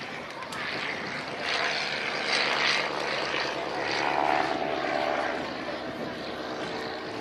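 Propeller-driven biplane engine droning overhead, swelling louder about a third of the way in and again just past halfway as the aircraft passes.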